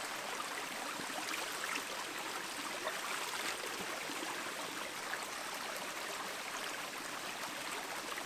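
Shallow, rocky woodland creek babbling steadily over stones.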